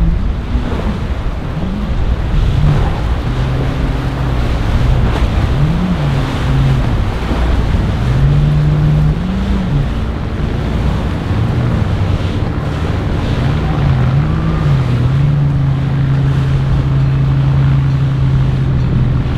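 A flybridge motor yacht's engines running hard through rough inlet chop, the engine note rising and falling several times as the hull meets the waves, over the rushing and splashing of water.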